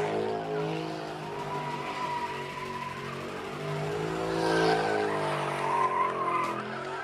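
A car doing donuts: the engine is held at high revs, rising and falling, while the rear tyres squeal and spin in smoke. The squeal comes twice, in the middle and near the end.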